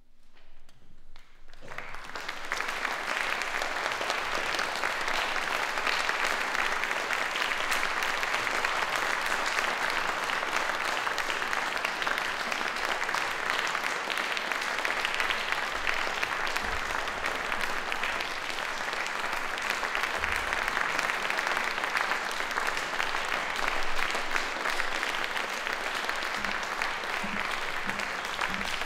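Audience applauding: the clapping starts out of near quiet and builds within the first couple of seconds into steady, dense applause.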